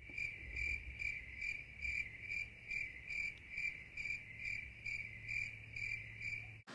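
Cricket chirping sound effect: a steady, evenly spaced high chirp about twice a second, cut off suddenly near the end.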